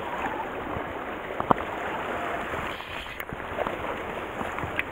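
Sea water lapping and washing against shore rocks, a steady rushing noise, with one sharp click about a second and a half in.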